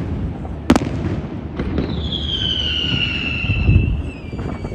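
Fireworks display: a sharp bang about half a second in over a steady low rumble of bursts. From about two seconds in comes a high whistle that slowly falls in pitch, typical of a whistling firework.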